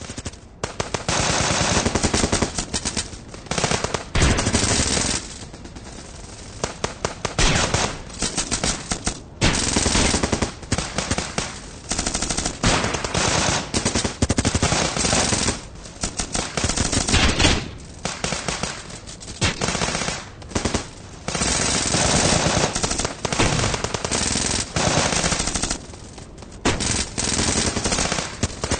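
Gunfight sound effect: bursts of rapid automatic gunfire, each lasting a second or two, with short lulls between them.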